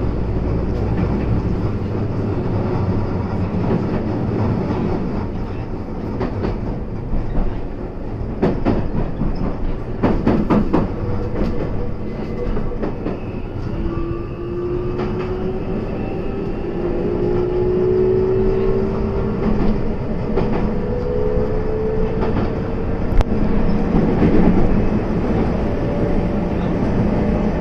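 Kobe Electric Railway commuter train running, heard inside the cab: the wheels clatter over points and rail joints for a few seconds near the middle, then the traction motors give a slowly rising whine as the train gathers speed.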